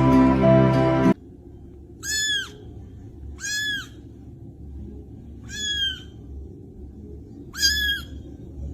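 Music that cuts off about a second in, then an animal's short high-pitched call, rising and falling in pitch, repeated four times at intervals of roughly two seconds.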